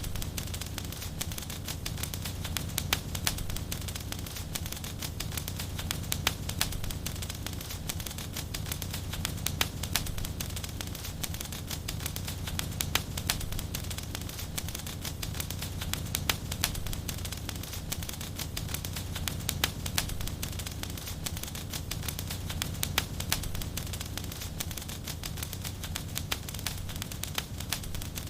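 Wood fire burning in a fireplace: a steady low rumble of flames under constant irregular crackles and pops.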